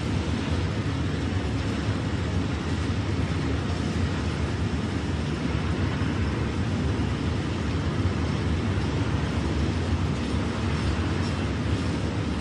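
Freight train of open wagons rolling past, a steady low rumble of wheels on rails with no letup.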